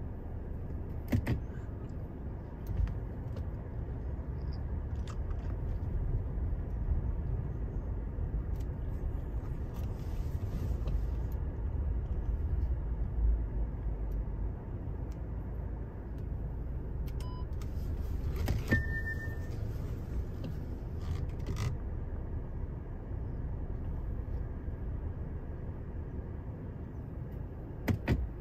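Steady low rumble inside a 2018 Audi Q7's cabin with the engine running, broken by a few short clicks and one brief high chime about two-thirds of the way through.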